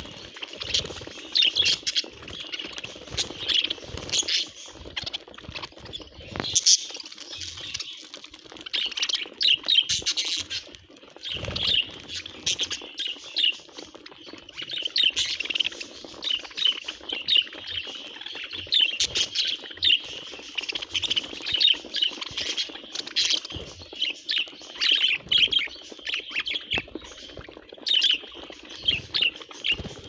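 A flock of budgerigars chattering: a busy, unbroken run of many short, high chirps overlapping one another.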